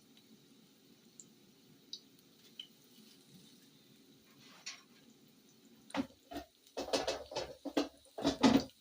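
Mushrooms frying in a pan of overly hot fat, with a few faint spits, then from about six seconds a run of loud clattering knocks of cookware being handled.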